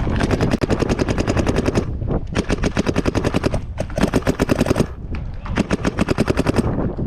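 Planet Eclipse Gtek 180R electronic paintball marker firing rapid strings of shots, over ten a second, in four bursts with short pauses between them.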